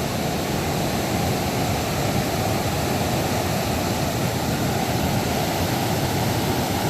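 River water rushing steadily past, an even noise with no breaks.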